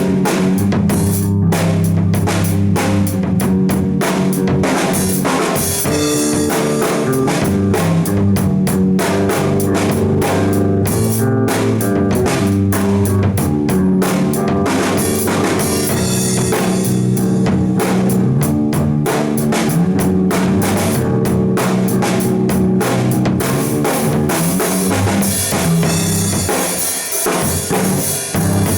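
Live band jam: a drum kit plays a busy, steady beat with kick and snare under held, changing notes from pitched instruments. The low notes drop out briefly near the end.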